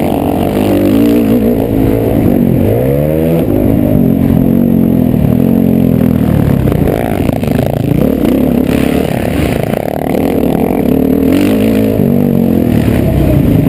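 Motocross bike engine revving hard under race riding, its pitch climbing and dropping repeatedly as the rider accelerates, shifts and rolls off the throttle, with a rough dirt-and-wind clatter underneath.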